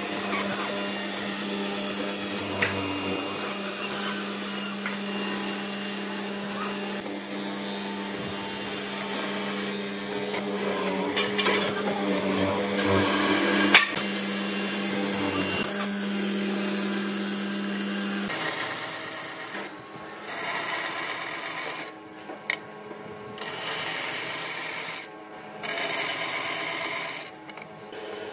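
Bench hollow-chisel mortiser running with a steady motor hum while its square chisel and auger bore into wood, with scraping and a sharp knock near the middle. A little past halfway this gives way to a bandsaw cutting wood in short passes, with brief pauses between them.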